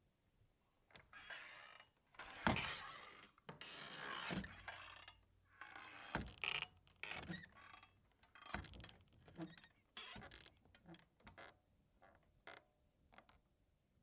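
Revolving door being pushed round: a series of swishes, thunks, scrapes and clicks, with the loudest thud about two and a half seconds in, then lighter clicks and knocks thinning out toward the end.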